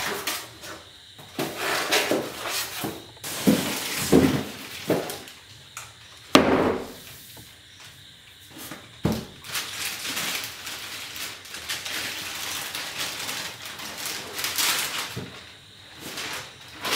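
Hard parts and packaging of a TV stand being handled: several sharp knocks and clunks, the loudest about six seconds in, with rustling in between.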